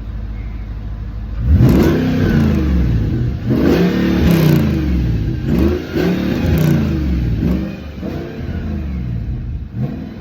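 B7 Audi RS4's 4.2-litre V8 blipped through several rising and falling revs from idle, exhaust flaps open in sport mode on a decatted exhaust, then settling back toward idle near the end.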